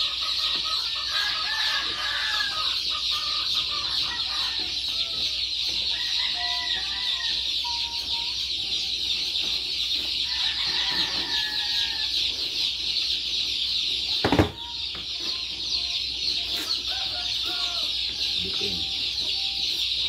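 A dense, steady chorus of many chicks peeping in a brooder, with lower chicken clucks and calls coming and going over it. A single sharp knock comes about three-quarters of the way through.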